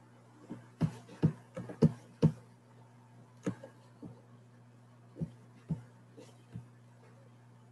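Irregular sharp clicks and taps from someone working at a computer, about a dozen, bunched in the first couple of seconds and then spaced out, over a steady low electrical hum.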